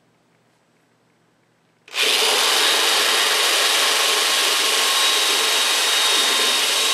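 Corded electric drill starting suddenly about two seconds in and running steadily, drilling a quarter-inch hole through a corner mounting hole of a bandsaw's base.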